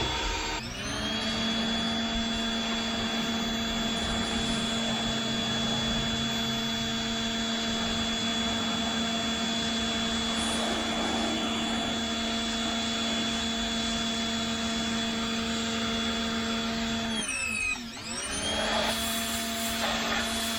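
Pressure washer motor running at a steady high hum. Near the start, and again about three seconds before the end, its pitch dips and then climbs back to speed.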